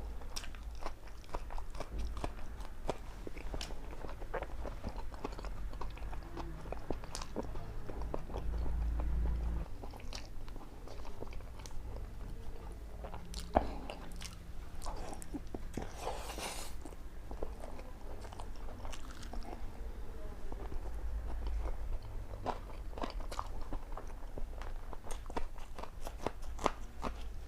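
Close-miked eating: repeated biting, crunching and chewing of food, many short crisp crunches one after another, with a brief rushing breath-like noise about two-thirds of the way through.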